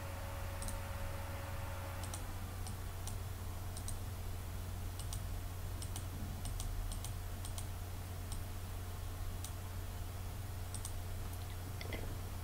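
Computer mouse clicking now and then, sharp light ticks as the stick figure's joints are dragged and new animation frames appended, over a steady low electrical hum.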